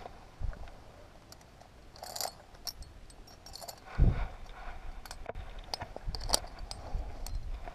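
Metal climbing gear clinking: carabiners and cams on the harness jingle in short, irregular bursts as the climber moves on the rock. A low thump comes about four seconds in and is the loudest sound.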